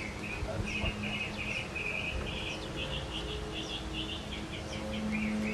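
A bird singing: short rapid trills repeated one after another, over a faint steady low hum.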